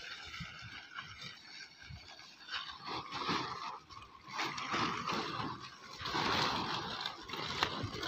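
A large woven plastic tarpaulin rustling as it is pulled and spread out over sandy ground, coming in a few swells.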